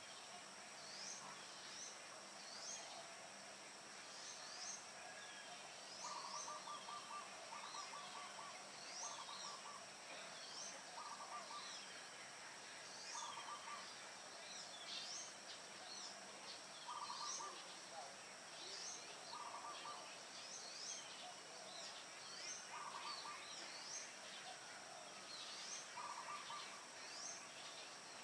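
Faint dawn birdsong: short high chirps repeated about once a second, and from about six seconds in a lower rapid trill every couple of seconds, over a steady high insect drone.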